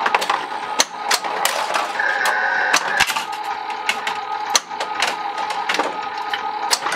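Bally Who Dunnit pinball machine in play with its playfield glass off: irregular sharp clacks of flippers, solenoids and the ball, a couple a second, over the machine's steady electronic game sounds, with a brief high tone about two seconds in.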